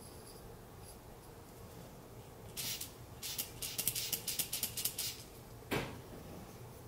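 Hair fiber applicator's squeeze bulb being pumped again and again, each squeeze giving a short hiss of air puffing fibers out of the nozzle, about a dozen in quick succession. A single knock follows near the end.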